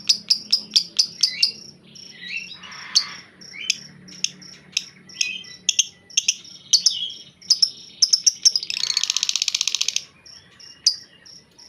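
White-rumped shama (murai batu) calling in a chattering 'grumble' (ngedumel) rather than its usual song: a quick run of sharp, high chirps, then scattered varied notes, and about nine seconds in a dense buzzing rattle lasting about a second.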